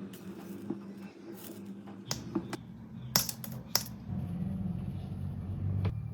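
A few sharp clicks and taps of small hard objects, the loudest about three seconds in, over a low steady drone.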